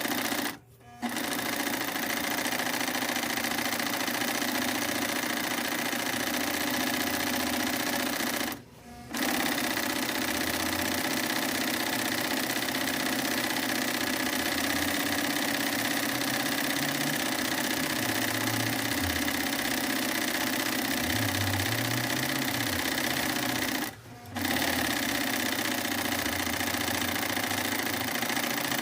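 Sewing machine running steadily in long stitching runs, stopping briefly three times: about a second in, around nine seconds in, and around twenty-four seconds in.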